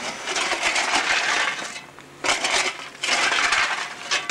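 Steel shovel digging into a wagon load of lump coal, the coal lumps clattering and crunching in three strokes.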